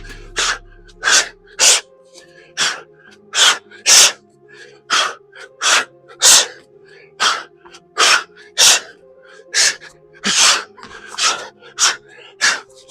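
A man's sharp, forceful exhalations, about one and a half a second, one with each explosive rep of a plyometric bodyweight circuit as he breathes hard, over faint background music.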